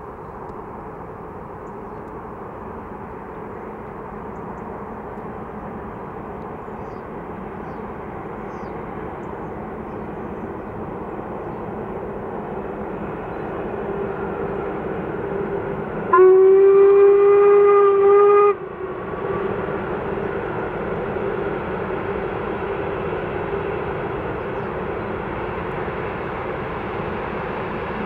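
Steam locomotive hauling a passenger train, its running noise growing steadily louder as it approaches. Just past halfway it sounds its whistle once, a loud steady note held for about two seconds that cuts off sharply.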